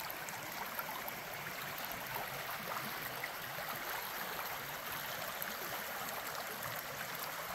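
A small rainforest creek flowing, a steady, even rush of running water.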